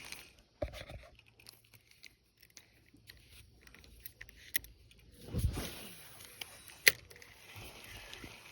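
Scattered small clicks and knocks of close handling, with a low rumble about five seconds in and one sharp click just before the seven-second mark.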